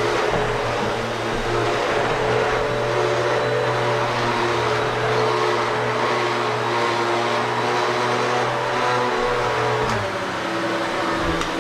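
Household vacuum cleaner running steadily, its motor hum shifting in pitch about ten seconds in as the load on it changes.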